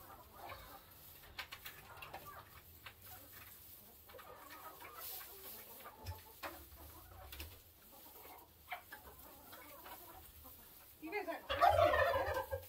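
Domestic hens clucking in a flock, with a much louder stretch of pitched calling near the end.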